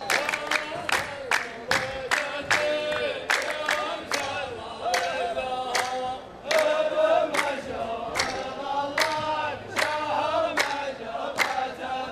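A line of men chanting in unison as the chorus of a muhawara poetry duel, clapping their hands together at about three claps a second.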